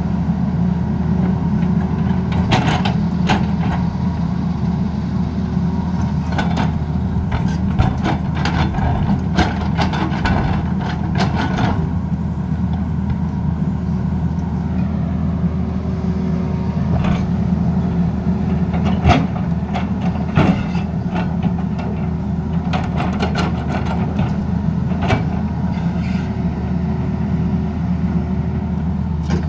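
Tata Hitachi crawler excavator's diesel engine running steadily under digging load, with frequent short clanks and knocks as the bucket digs into soil and stones.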